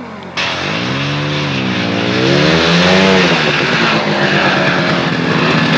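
Ski-Doo Bravo snowmobile's two-stroke engine revving, its pitch rising and falling several times, then running more steadily at higher revs.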